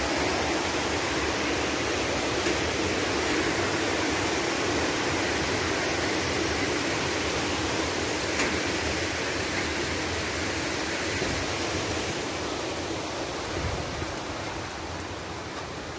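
River water rushing over a small stone weir: a steady, loud rushing that slowly fades over the last few seconds.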